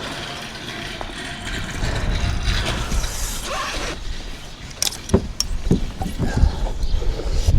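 Wind buffeting the microphone with a gusty low rumble. From a little past halfway there are several sharp clicks and knocks from work on the van roof.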